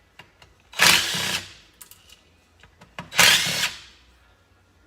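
Cordless power driver spinning out Torx screws from an ATV engine case, in two short runs of under a second each, about a second in and about three seconds in.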